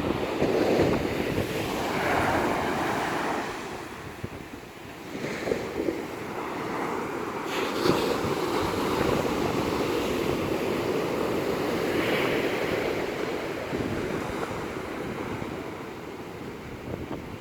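Rough sea surf breaking and washing, rising and falling in waves, with strong wind buffeting the microphone.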